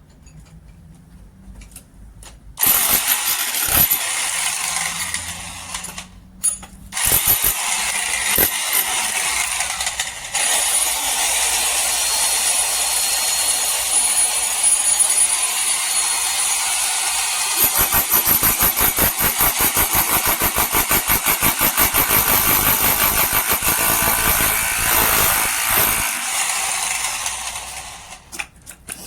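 Electric demolition hammer running and chiselling, loud and pulsing, starting about two and a half seconds in and stopping briefly twice before dying away near the end.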